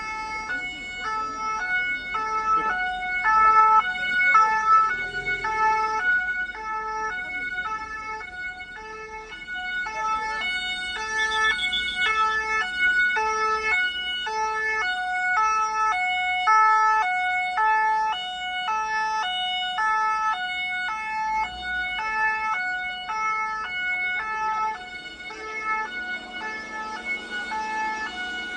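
Two-tone emergency vehicle sirens alternating steadily between a high and a low pitch, more than one sounding at once and out of step with each other.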